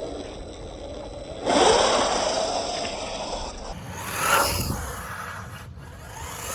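A 1/14-scale electric RC car driving fast, its motor whining and tyres scrabbling, loudest as it speeds up about one and a half seconds in and again around four seconds in.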